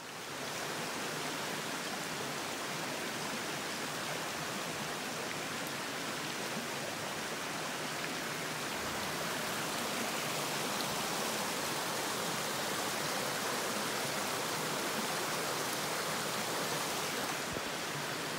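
Small mountain brook running over rocks: a steady, even rush of water.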